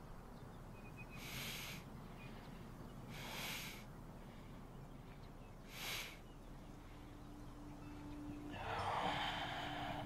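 A man's ragged breathing: three short sharp breaths about two seconds apart, then a longer, louder breath near the end. A faint, steady low tone comes in a little past halfway.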